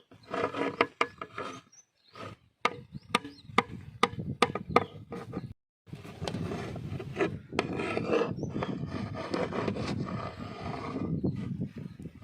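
A serving ladle scraping and knocking in a large pot of chicken biryani: sharp clinks over a rasping scrape. The sound cuts out briefly twice.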